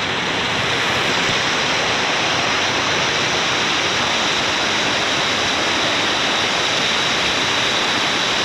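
Waterfall pouring down: a loud, steady rush of water with nothing else standing out.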